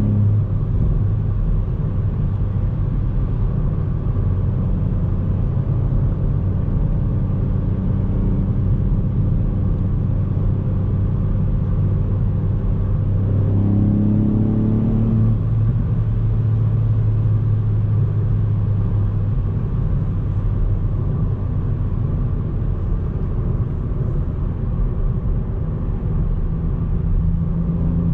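Ford Fiesta ST Mk8's 1.5-litre turbocharged three-cylinder engine running at a steady cruise over low road rumble, its note rising briefly about halfway through before settling again.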